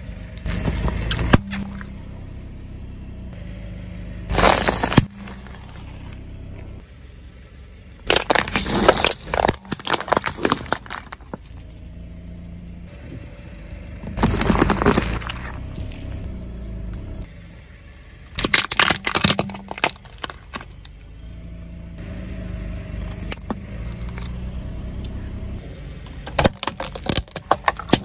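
A car tyre rolling over and crushing plastic containers and soft jelly objects on asphalt. About six separate bursts of cracking and crunching come every few seconds, over the low, steady sound of the car's engine running.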